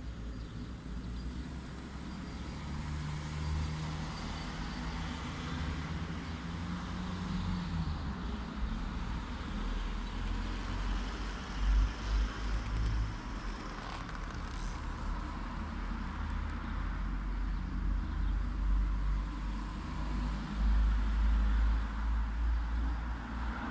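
Light road traffic: cars passing with a continuous low rumble. One engine's hum holds steady for a few seconds, then drops away at about seven seconds in.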